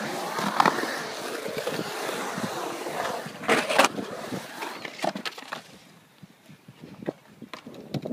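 Skateboard wheels rolling on a concrete bowl, with a loud clatter of the board striking the concrete about three and a half seconds in, then fainter scattered clacks.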